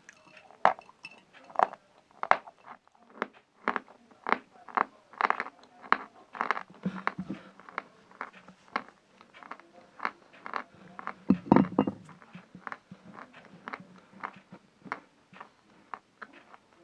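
A person chewing pieces of dried natural chalk close to the microphone: a run of short, sharp crunches, about two to three a second, with the loudest cluster about two thirds of the way through.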